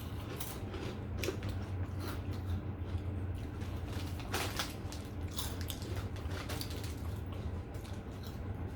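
Close-up eating sounds: wet chewing and lip-smacking in scattered clicks, the loudest about halfway through, over a steady low hum.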